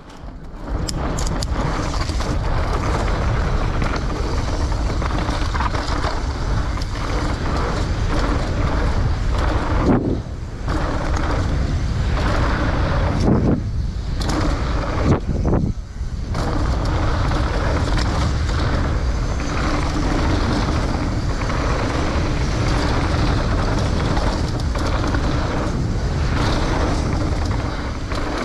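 Mountain bike descending a dirt trail at speed: wind rushing over an action camera's microphone and the tyres rumbling and rattling over the ground. It starts about half a second in and runs steadily, with a few brief lulls midway.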